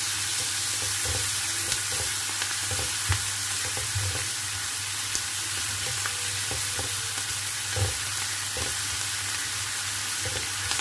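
Steady sizzle of smoked duck and garlic chive flowers stir-frying in a nonstick frying pan, with a spatula scraping and knocking against the pan now and then.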